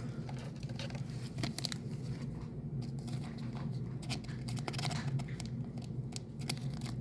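A trading card being slid into a thin plastic penny sleeve, with soft plastic crinkling and small scratchy clicks, over a low steady hum.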